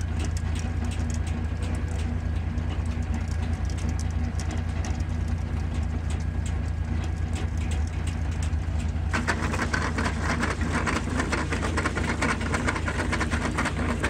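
Old Belsaw circular sawmill running from a PTO drive, a steady low drone with fast fine ticking from the spinning saw and drive. About nine seconds in, a denser metallic clatter starts up and keeps going.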